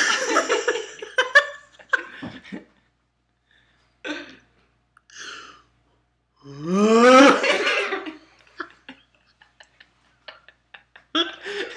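A young man laughing and making wordless vocal noises: a loud burst of laughter at the start, short breathy sounds, then a drawn-out voiced sound rising in pitch about halfway through. Laughter starts again near the end.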